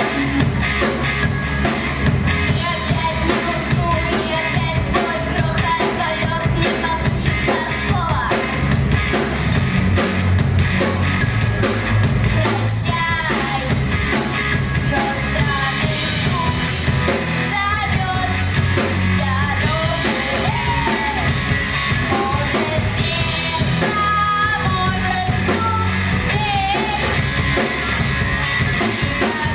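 A female vocalist singing a rock song, accompanied by drums and guitar with a steady beat.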